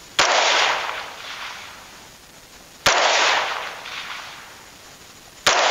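Three rifle shots about two and a half seconds apart, each fading over about a second, with a fainter report coming back about a second after each shot.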